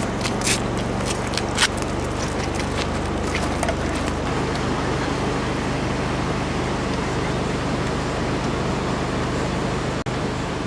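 Steady low hum of an idling diesel train engine under a constant rushing noise, with a few sharp crunching steps on gravel in the first two seconds.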